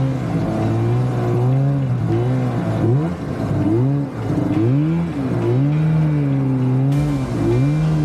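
Snowmobile engine running under way, its pitch rising and falling as the throttle is eased off and opened again, dipping sharply several times.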